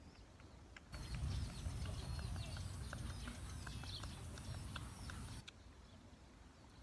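Wind buffeting the microphone outdoors, a low rumble that starts abruptly about a second in and cuts off about four and a half seconds later. Over it come quick small clicks and short high chirps.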